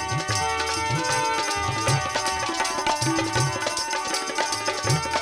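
Instrumental interlude of a Rajasthani devotional chirja: a hand drum keeps a steady rhythm with bass strokes that bend upward in pitch, under held melody notes.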